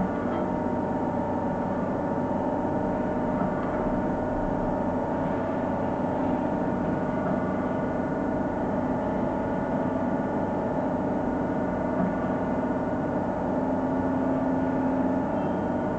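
Okamoto PSG63DXNC CNC surface grinder running with its table on slow traverse: a steady machine hum made of several even tones with a faint hiss beneath.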